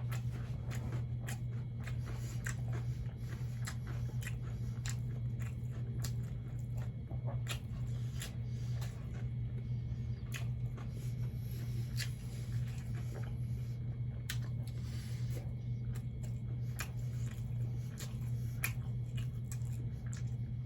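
Close-up chewing and wet mouth clicks of a person eating catfish with rice: many short irregular smacks and clicks. A steady low hum runs underneath.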